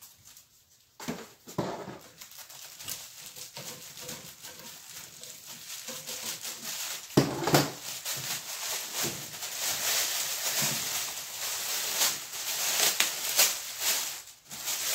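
Thin plastic wrapping crinkling and rustling as a pan is worked out of its plastic bag by hand. There is a sudden louder crackle about seven seconds in, and the rustling grows busier and louder in the second half.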